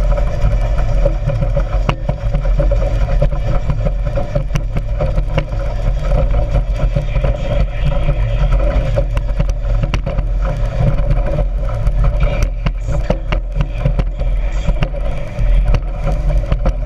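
Speedboat engine running steadily under way, a loud low rumble with scattered clicks and knocks.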